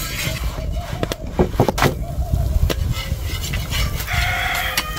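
Metal spatula scraping and tapping against an iron saj griddle as a flatbread is loosened from it, with a cluster of sharp clicks about a second in. A short pitched sound comes near the end.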